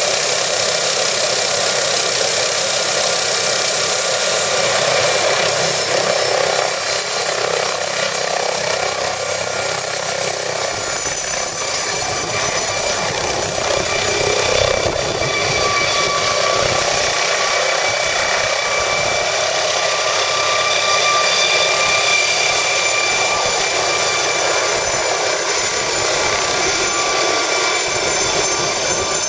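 MD 902 Explorer helicopter's turbine engines and rotor running at take-off power as it lifts off and climbs. A high whine rises in pitch a few seconds in, then holds steady.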